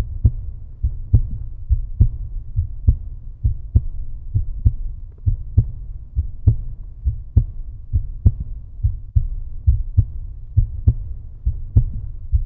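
Outro background music: a steady beat of deep, low bass thumps, about two a second, cutting off abruptly at the very end.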